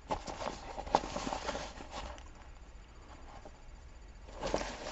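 Rustling and scraping of a fabric buttpack and the small items being handled into it. It comes in irregular bursts through the first two seconds, then quietens, and rises briefly again near the end.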